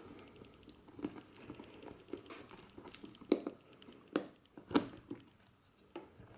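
Hands handling a hard-shell leather camera case: rubbing and scuffing, with sharp clicks as its metal clasp is worked and the lid comes open. The loudest clicks come a little after four seconds in.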